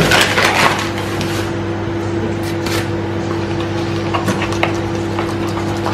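Metal spoon stirring flour and water into a paste in a small plastic cup, with scattered light clicks and scrapes, over a steady electrical hum from a running kitchen appliance. A louder clatter comes right at the start.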